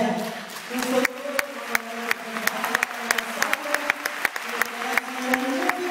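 Audience clapping in time, about three claps a second, over a group of voices singing.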